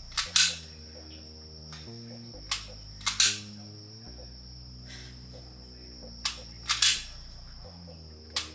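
Sig Sauer P320 pistol being dry-fired: sharp trigger clicks, each followed about half a second later by a quick double clack of the slide being racked to reset the trigger, repeated three times.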